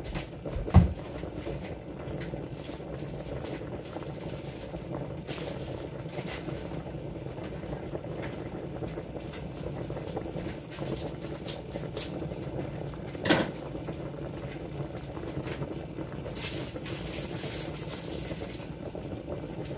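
Large stockpot of noodle water boiling steadily on the stove. A heavy thud comes about a second in, a sharp knock about two-thirds of the way through, and light clattering near the end.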